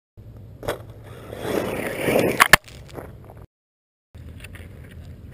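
Axial Yeti RC rock racer running over dirt with a scraping, crunching noise that swells, then two sharp knocks about two and a half seconds in. The sound drops out for about half a second and resumes as quieter scraping.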